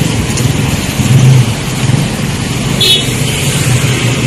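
Street traffic: small motorcycle and tricycle engines running close by, their hum swelling and falling as they pass. A brief high-pitched chirp about three seconds in.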